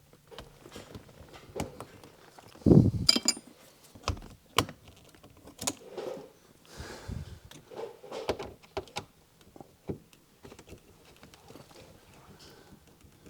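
Clicks, knocks and rattles of hand tools and plastic interior trim being worked loose inside a car, with one heavy thump about three seconds in.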